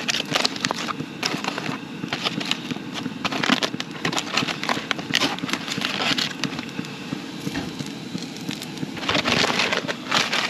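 Aluminium foil crinkling and crackling as a foil-wrapped package is unwrapped by hand, with a denser burst of crackling near the end.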